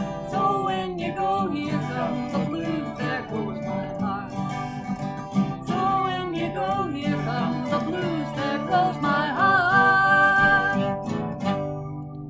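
Small country band playing live, acoustic guitar strummed, through the closing bars of a song, with a long held final note near the end before the music stops.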